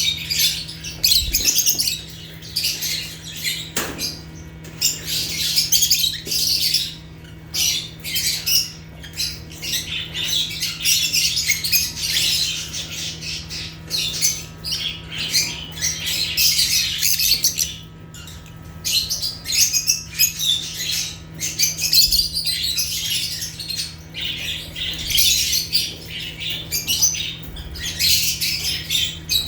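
A flock of lovebirds chattering continuously, a dense mix of shrill chirps and squawks from many birds at once, with a steady low hum beneath.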